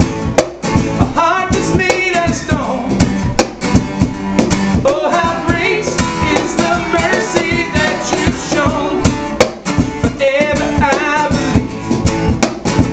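Live acoustic band playing: strummed acoustic guitar and a cajón beating a steady rhythm, with a singing voice over them.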